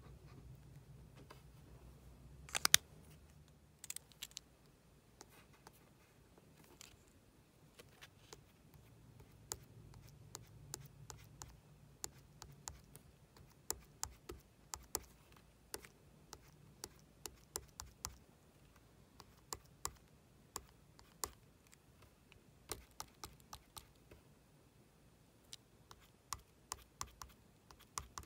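Faint, irregular light ticks and taps of a pen tip on a small card as short marks are drawn, a few a second in places, with a sharper double click about three seconds in, over a low steady hum.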